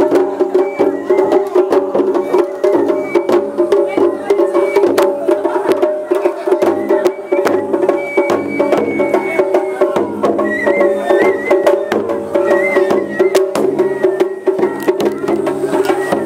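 Japanese festival hayashi played on a yatai float as it is pulled: taiko drum strikes in quick succession under a held, wavering melody line.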